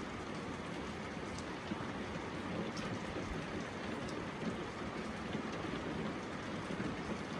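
Steady rain falling, with the patter of individual drops landing on surfaces.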